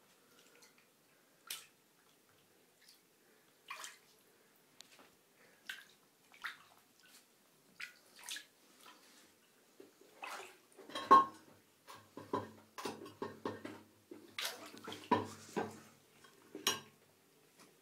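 Shallow water in a bathtub splashing and sloshing as kittens move through it: scattered short splashes at first, coming thicker and louder from about ten seconds in.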